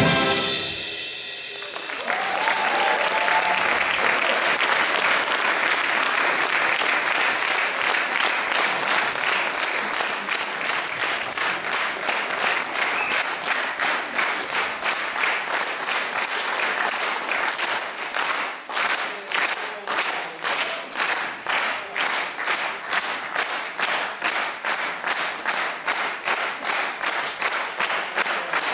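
A big band's final chord stops, then an audience bursts into applause. The applause settles into steady rhythmic clapping in unison, about two claps a second.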